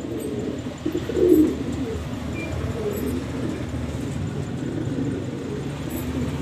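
Pigeon cooing: low, warbling coos that keep going, loudest about a second in.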